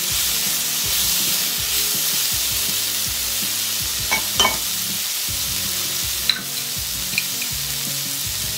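Onions, dried bitter gourd and fresh tomato sizzling steadily in oil in a frying pan, stirred with a wooden spatula at the start. A few sharp clicks come about four seconds in and again near six and seven seconds.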